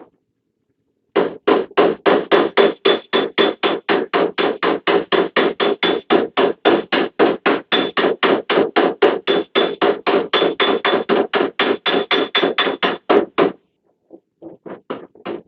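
Hammer tapping fast and evenly on the sheet-steel panel of a van's rear door, about four or five blows a second, to work out a dent. The blows stop for a moment near the end, then resume more lightly.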